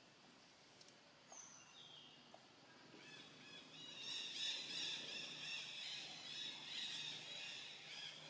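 Faint outdoor ambience: a couple of short, high chirps, then a high, pulsing chirping chorus that comes up about three seconds in and carries on.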